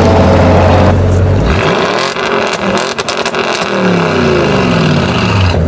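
Audi RS6 Avant's twin-turbo V8 revved hard: the engine note climbs, crackles with a run of sharp pops at the top, then winds back down to a steady idle. Before that, about the first second, a car's engine holds a steady note.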